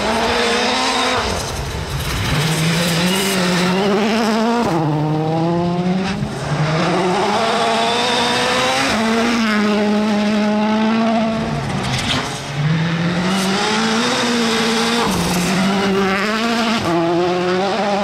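Citroën C3 WRC rally car's 1.6-litre turbocharged four-cylinder engine revving hard, its pitch climbing and then dropping sharply with each gear change and lift-off, several times over. Gravel sprays from the tyres as it slides through the corners.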